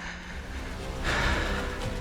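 Background music with several held notes, swelling a little louder about halfway through.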